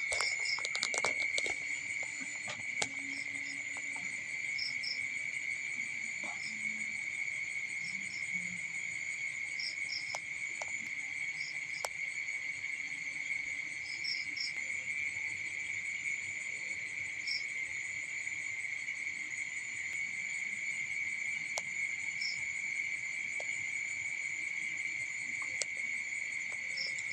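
Steady, continuous high trill of insects chirping, with scattered short higher chirps over it and a few light clicks about a second in.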